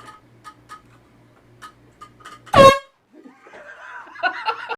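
One short, very loud blast of a handheld air horn about two and a half seconds in, followed by a person's voice. Faint clicking comes before the blast.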